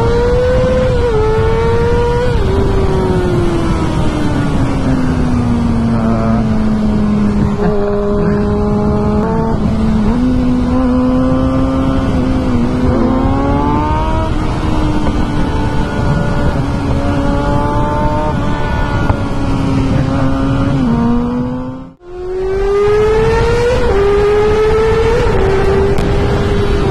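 Kawasaki ZX6R inline-four sportbike engine with a full Two Brothers exhaust, heard from on the bike, revving hard through the gears: the pitch climbs and drops back at each upshift, then holds steady for several seconds in the middle. The sound fades out briefly a little over 20 seconds in and comes back with the engine climbing through quick upshifts again.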